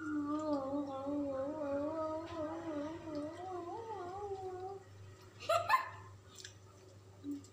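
A person humming one low, wavering note without a break for about five seconds, then a short, sharp rising squeal about five and a half seconds in.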